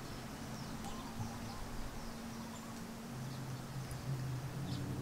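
Quiet background: a faint steady low hum, with a few faint, short high-pitched chirps scattered through it.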